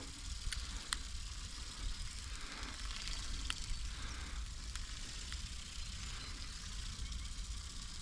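Wind buffeting the microphone: a steady low rumble under a soft, even hiss, with a few faint clicks scattered through.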